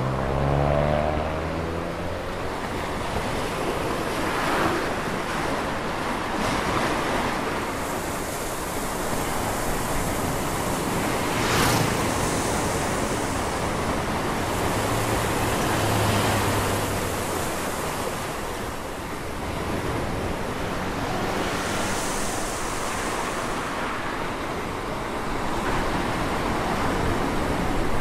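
Steady, fairly loud rushing noise, with a brief sliding tone in the first second or two.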